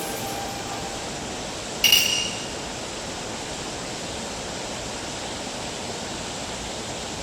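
Mountain stream water rushing steadily, with a single bright clink about two seconds in that rings briefly.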